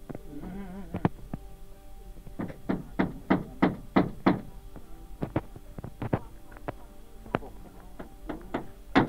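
Hand hammer driving nails through a wall panel into a wooden cabin frame: sharp blows, often in quick runs of several, the loudest near the end. Background music with sustained tones plays underneath.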